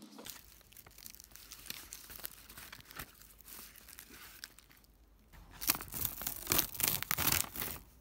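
Crinkling and rustling of plastic film and prepreg backing sheets being handled: light scattered rustles at first, then a loud run of crinkling in the last three seconds.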